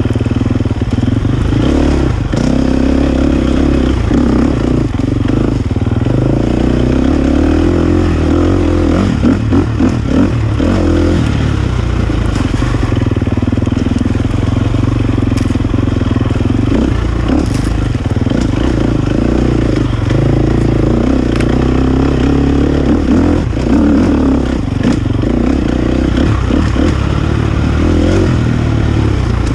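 Dirt bike engine running on a rocky single-track trail, its pitch rising and falling as the throttle is rolled on and off, with stones and gravel clicking and clattering under the tyres.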